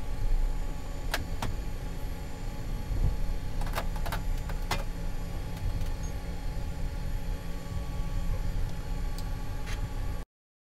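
Steady low rumble of an airliner's engines and cockpit air heard inside the flight deck while taxiing, with a few sharp clicks. It cuts off suddenly near the end.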